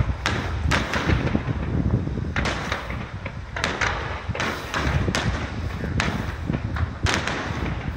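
Fireworks display: aerial shells bursting in a fast, irregular run of sharp bangs, a dozen or more, over a continuous low rumble.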